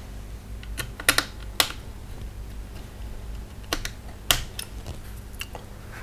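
Irregular small, sharp clicks and taps of hands and a screwdriver working among the plastic and metal parts inside an open laptop. A quick pair of clicks comes about a second in and more around four seconds in.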